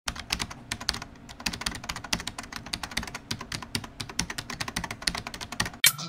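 Computer keyboard typing, a rapid and irregular run of clicks used as a sound effect over a title card, stopping near the end.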